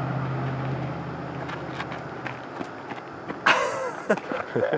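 A passing motor vehicle's engine hum and road noise fading away. About three and a half seconds in, a person's voice cuts in suddenly and loudly, followed by people talking.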